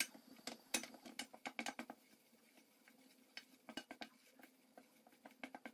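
Wooden spoon scraping and knocking against a stainless steel saucepan as flour is stirred into butter and oil to cook a roux, in quiet irregular clicks and scrapes, thicker in the first two seconds and again near the end.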